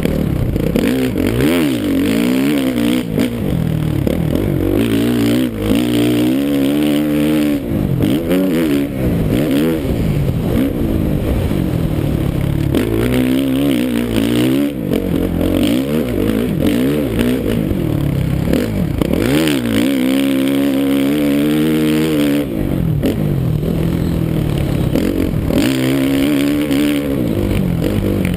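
2013 Suzuki RM-Z450's single-cylinder four-stroke engine ridden hard around a dirt track. It revs up and backs off over and over, its pitch rising and falling every few seconds through the turns and straights.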